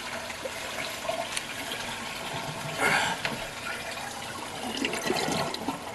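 Toilet tank draining through its flush valve after a flush. The water supply is shut off, so the tank empties without refilling.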